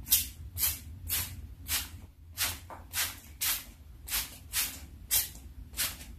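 Hand trigger spray bottle squirting a thin mix of white chalk paint and water in short hissing bursts, about two a second.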